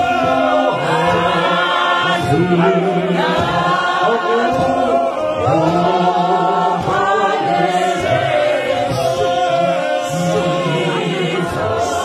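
A men's choir singing in harmony without instruments, with deep bass voices holding long low notes under the tune.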